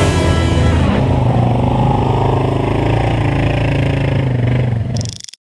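ATV engine running steadily, with rock music fading out about a second in. The sound cuts off abruptly near the end.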